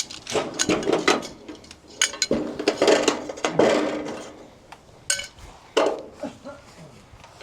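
Gutter hangers being removed from an aluminium gutter: irregular metallic clinks and clanks, in clusters, loudest a couple of seconds in and again about five seconds in.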